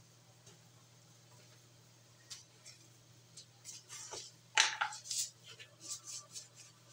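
A clear plastic container being picked up and handled beside the stove: a run of clicks and knocks starting about two seconds in, the loudest about halfway through, over a faint low hum.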